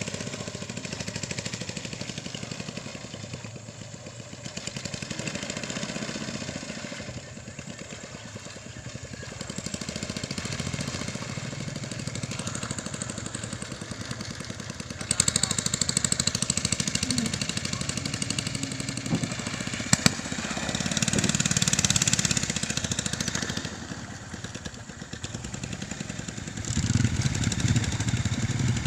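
Small motor engines running nearby, the sound coming and going in level. It grows louder about halfway through and again near the end, with one sharp click in between.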